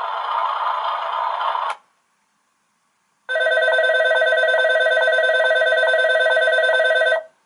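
A rattling, clattering noise that cuts off just under two seconds in, then after a short silence an electric station departure bell rings steadily for about four seconds and stops abruptly.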